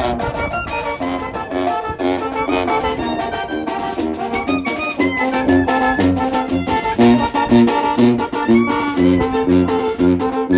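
A Mexican brass band playing: brass instruments carry the melody in sustained notes over a steady drum beat.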